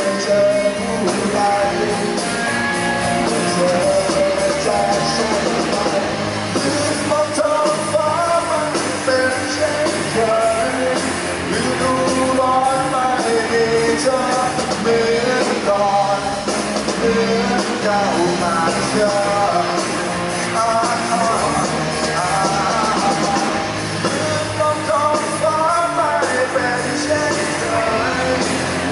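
Live rock band playing: a male lead singer sings through the PA over drums and electric guitars.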